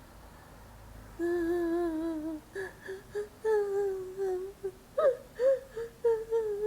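Playback of a recorded sound effect of a woman crying, processed with GarageBand's Radio Ready vocal preset and turned down in volume. After about a second of quiet there is one long wavering whimper, then short broken sobs with rising catches in the voice.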